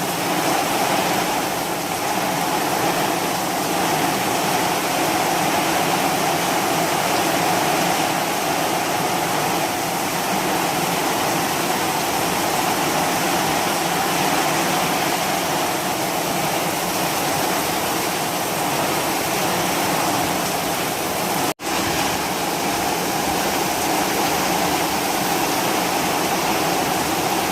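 Heavy rain pouring down, a loud, steady, even rush. It cuts out for an instant about 21 seconds in.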